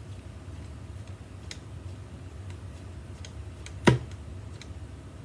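Hand screwdriver turning a small screw into a guitar top, giving scattered faint clicks. One sharp knock about four seconds in carries a short ring from the hollow body.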